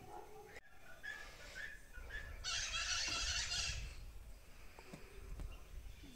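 Maritacas (small parrots) screeching: a harsh, rapid burst of calls about two and a half seconds in, lasting about a second, with fainter calls before it.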